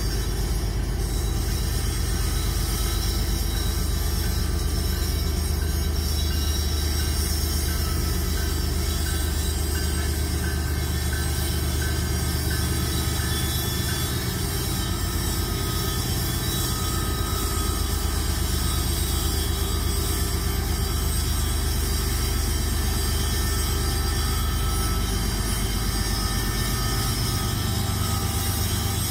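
Several Union Pacific GE diesel-electric locomotives moving slowly past while working under load up a grade, a steady low engine drone that shifts slightly in pitch about halfway through and again near the end.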